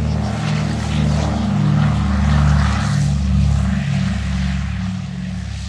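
A Douglas C-47 Dakota's two piston radial engines with propellers running at power as the aircraft passes close by, with a throbbing beat. The sound swells to its loudest about halfway through, then begins to fade.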